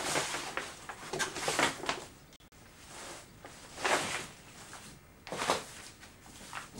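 Plastic sheeting crinkling and rustling as it is handled and spread out, in irregular bursts: a cluster in the first two seconds, then one about four seconds in and another near five and a half.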